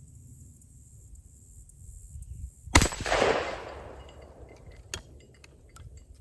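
A single shot from a Springfield Model 107 single-shot 12-gauge shotgun about three seconds in, with the report dying away over about a second. The roughly 60-year-old Remington shell of number 4 shot fired normally.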